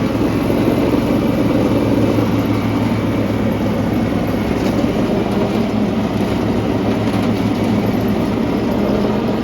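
Kawasaki 25-horsepower engine on a Dixie Chopper zero-turn mower running steadily at high throttle, with the PTO engaged and the mower blades spinning. The throttle cable is broken, so the engine cannot be turned down.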